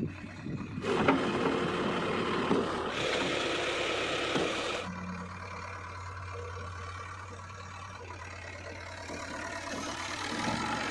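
JCB 3DX Eco Xcellence backhoe loader's diesel engine running; about a second in it revs up loudly for some four seconds, then drops back to a steady lower speed about halfway through, picking up again near the end.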